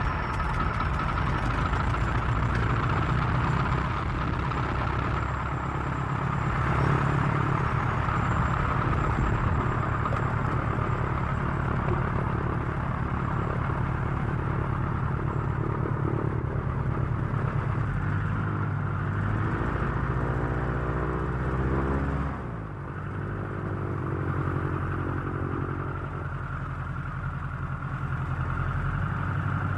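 Aircraft engine running steadily, shortly after start-up: a dense low rumble under a steady higher whine. About twenty seconds in, the pitch wavers up and down, then the level dips briefly before settling again.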